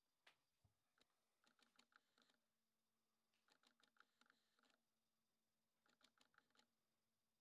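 Near silence, broken three times by a short run of faint, quick clicking.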